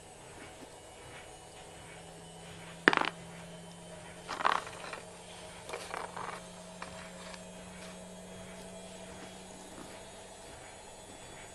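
Loose steel nails and screws clinking against each other as they are gathered up by hand from a rug and dropped into a plastic bag: one sharp clink about three seconds in, a louder jingling cluster a moment later, then a few softer clinks around six seconds. A faint steady hum lies underneath.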